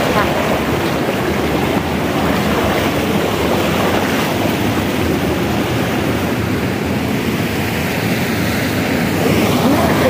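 Steady rush of a waterfall and its stream pouring over rocks.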